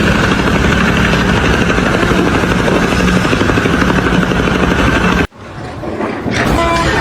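Loud, steady machine noise with a low hum, which cuts off abruptly about five seconds in. A different steady noise starts about a second later.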